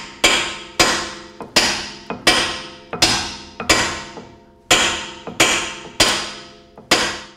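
A 4-pound mallet striking a steel center punch to drive a brake pad retaining pin out of a six-piston brake caliper. About ten heavy blows land at a steady pace, each followed by a short metallic ring. The pin is dirty and corroded, so it takes repeated hard hits to move.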